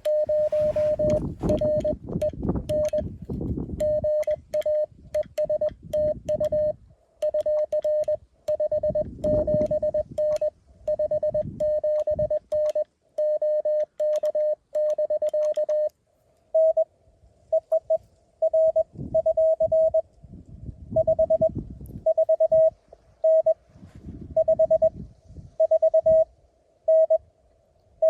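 Morse code (CW) being keyed as on-off beeps at one steady pitch from a Mountain Topper QRP transceiver. About halfway through the tone steps slightly higher and the keying rhythm changes. A low rumbling noise runs under the first part.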